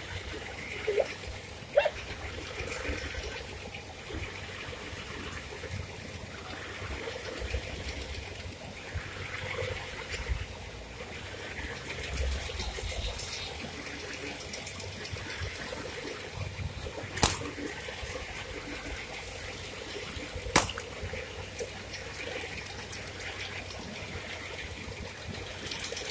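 Steady rushing hiss throughout, broken past the middle by two sharp pops about three seconds apart: rubber balloons bursting as they are blown up by mouth.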